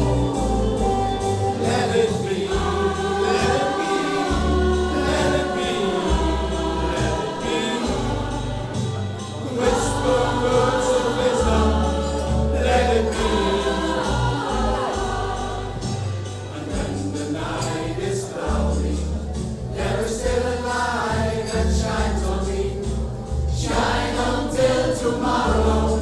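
Music: a song with choral singing over a bass line and a steady beat.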